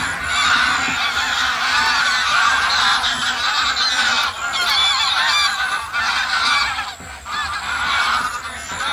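A large flock of geese honking, many calls overlapping without a break, easing briefly about four and seven seconds in.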